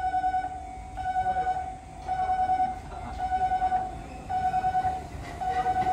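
Electronic warning bell at a railway level crossing, sounding a fluttering tone about once a second to signal an approaching Enoden train.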